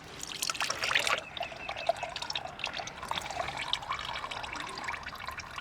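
Engine oil trickling and dripping out of a just-loosened spin-on oil filter into the drain pan, heaviest in the first second or so.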